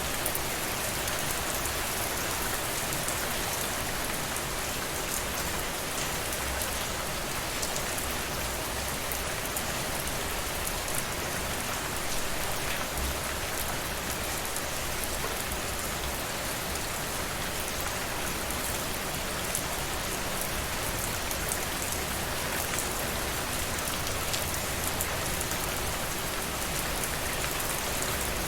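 Steady rain falling, an even hiss of rainfall with scattered drop ticks on surfaces.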